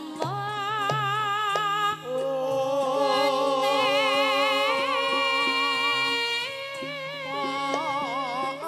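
Javanese gamelan in Sragenan style playing, with bonang gong-chimes struck under a woman singing a long, wavering vocal line.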